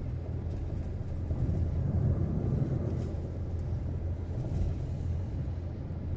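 Car driving on a highway: a steady low road and engine rumble.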